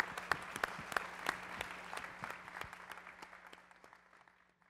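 Audience applauding in a hall, a dense patter of clapping with some sharp nearer claps standing out, fading away near the end.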